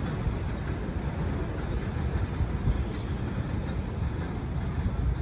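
R68 subway train pulling away along an elevated track, giving a steady rumble of wheels and running gear.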